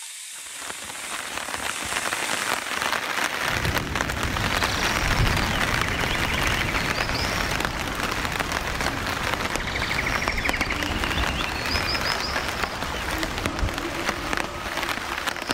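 Rain falling on a camp tarp, a steady hiss, with a low rumble joining about three seconds in and a few faint high chirps over it.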